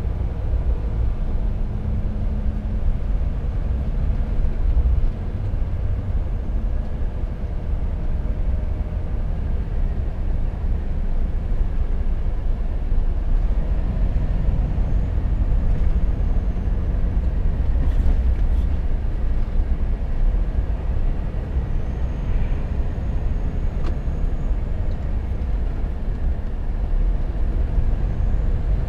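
Volvo FH 460 truck's 13-litre straight-six diesel engine running steadily on the move, a continuous low drone with road noise.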